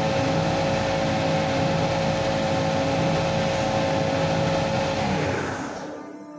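Homemade belt sander, its electric motor driving the rollers directly at 2800 rpm, running with a steady hum and the rush of the sandpaper belt. About five seconds in it winds down, its pitch falling as the noise fades away.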